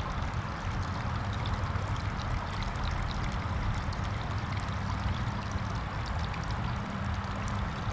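Water pouring and trickling steadily out of a Polaris 9550 robotic pool cleaner held up out of the pool, draining from its clogged, water-logged filter basket. A steady low hum runs underneath.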